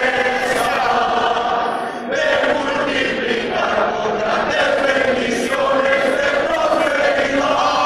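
Many voices chanting together in long held phrases, with a short dip about two seconds in.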